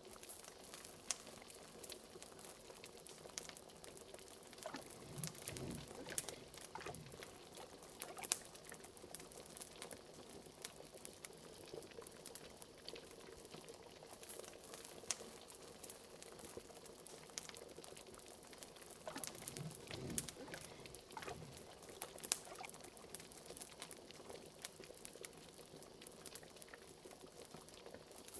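A pot of liquid bubbling steadily at the boil, mixed with the sharp crackles and pops of a wood fire. Deeper, fuller bubbling swells up about five seconds in and again around twenty seconds.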